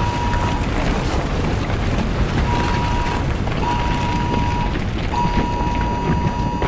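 Earthquake rumble sound effect: a loud, continuous deep rumbling noise. Over it, a steady alert tone sounds in stretches of about half a second to a second and a half, stopping and starting several times.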